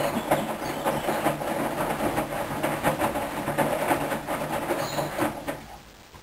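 Hoover washing machine in its rinse cycle: the drum motor running and turning the laundry with a steady hum and repeated irregular knocks, then stopping about five and a half seconds in.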